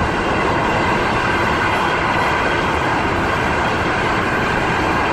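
Diesel-hauled passenger train running past on the tracks, a steady rail rumble blended with the road and wind noise of a car driving alongside it.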